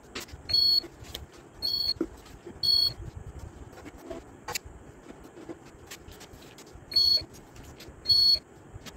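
Impulse heat sealer sealing plastic ice-pop tubes, with a short high electronic beep each time a seal cycle ends: five beeps, three in quick succession and then two more near the end. Light clicks and knocks of the sealer's handle and the tubes being handled come between the beeps.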